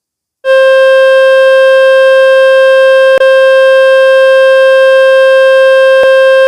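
Speaker-cleaning tone from the Fix My Speaker website, played to shake water and dust out of a phone speaker: it starts about half a second in as one loud, steady, buzzy pitch and holds without changing. Two brief clicks cut through it, about three and six seconds in.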